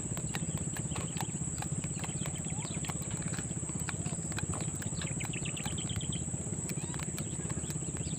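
Steady high drone of insects such as crickets, over a low throbbing hum, with scattered clicks. About five seconds in, a quick run of high chirps.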